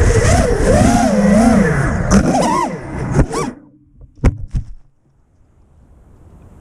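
FPV drone's motors whining over a rushing noise, their pitch swinging up and down with the throttle; the whine cuts off about three and a half seconds in. Two sharp knocks follow, then only a faint hiss.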